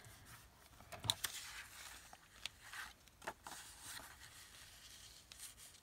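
Faint handling of paper and cardstock: rustling and light taps as a postcard and paper cut-outs are moved about, with a scatter of soft clicks, the sharpest about a second in.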